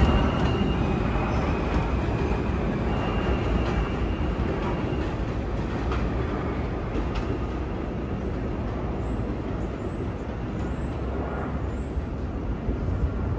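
New York subway train pulling out of the station and running away along elevated track, the rumble of its wheels on the rails fading slowly as it recedes.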